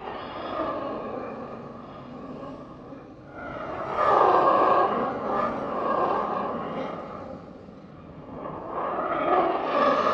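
Monster sound effect made for the Stranger Things Demogorgon: rasping, growling roars that swell and fade, loudest about four seconds in and again near the end.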